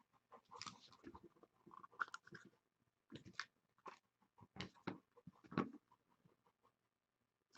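Faint handling sounds of a trading card and a plastic one-touch card holder: scattered light clicks and rustles, irregular, dying away about six seconds in.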